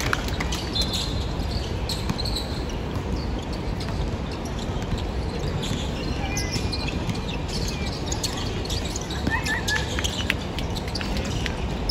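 Basketball game play: the ball bouncing on the court amid a steady background din, with short sneaker squeaks about nine seconds in.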